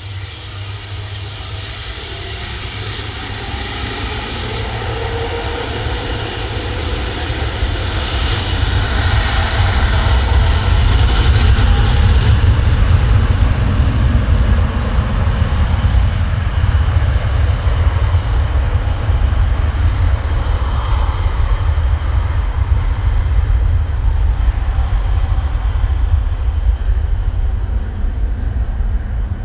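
Airbus A350's twin Rolls-Royce Trent XWB turbofans at takeoff power: a jet roar with a deep rumble that grows louder over the first dozen seconds, holds, and eases slightly near the end.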